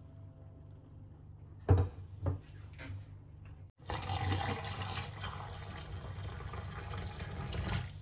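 Hot water poured from a stainless steel pot straight into a stainless steel sink drain, a steady gush and splash from about four seconds in until near the end, flushing a clogged drain. Before the pour, two sharp knocks about half a second apart.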